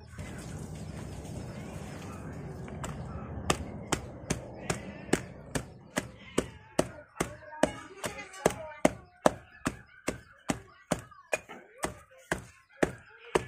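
Stone pestle pounding sliced lemongrass and chilies in a stone mortar: sharp knocks that begin about three and a half seconds in and settle into a steady beat of two to three strikes a second.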